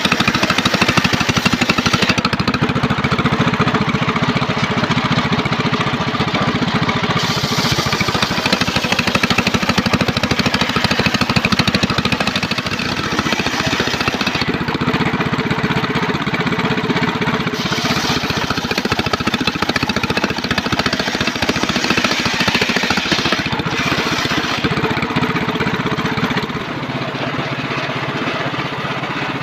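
Engine-driven homemade circular saw bench ripping a mahogany log into boards. The engine runs with a fast, steady pulse underneath, and the high cutting noise of the blade in the wood drops away about 2, 15 and 25 seconds in for a few seconds each time before cutting resumes.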